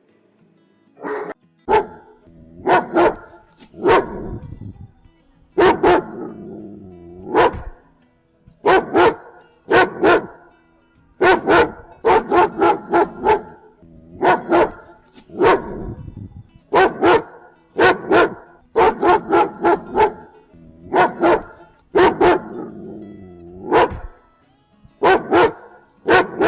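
German Shepherd dog barking aggressively: loud, sharp barks coming singly or in quick runs of two or three, with short pauses between the runs.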